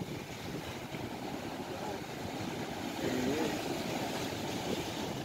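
Surf washing and breaking against a rocky shoreline: a steady rush of water noise.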